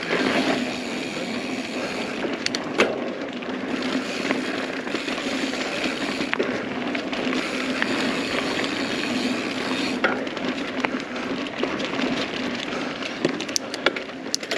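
Mountain bike rolling fast over a dirt singletrack: steady tyre and trail noise with rattling clicks and knocks from the bike, several sharp clicks near the end.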